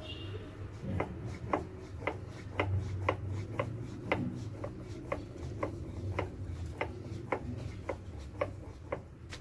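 Thin wooden rolling pin rolling out momo wrappers on a floured countertop: a low rolling rumble with sharp wooden clicks about twice a second as the pin goes back and forth.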